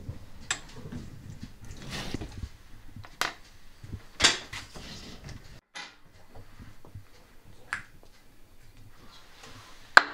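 Scattered sharp clicks and taps of hand tools being handled on a workbench, about six in all. One about four seconds in is followed by a short scrape, and the loudest, sharpest click comes at the very end.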